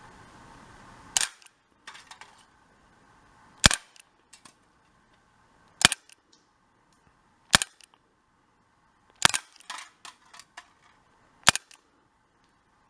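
Umarex Beretta PX4 Storm .177 CO2 air pistol firing: six sharp shots about two seconds apart, each followed by a few fainter ticks. A steady hiss sits under the opening second and stops at the first shot.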